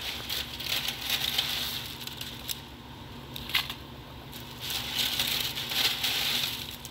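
Crinkling and rustling of a clear plastic bag holding thin dry bread pieces, coming in uneven swells, with a sharp click about three and a half seconds in.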